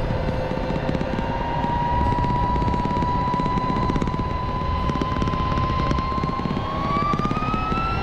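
Motorcycle riding along, heard from the bike itself: steady wind and road rumble with a whining tone that rises in pitch near the end as the bike speeds up.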